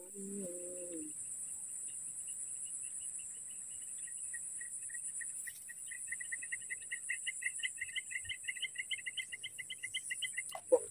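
Insects chirping in a steady, high, continuous drone. A second call of rapid, evenly pulsed chirps joins about two seconds in and grows louder toward the end. A brief low falling tone sounds right at the start.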